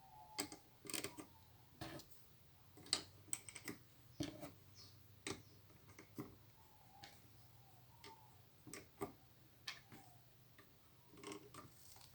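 Lego bricks clicking and tapping as they are handled and pressed together: about a dozen irregular, sharp plastic clicks.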